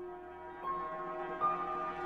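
Slow instrumental background music of sustained held notes, a new note coming in about half a second in and again near the middle.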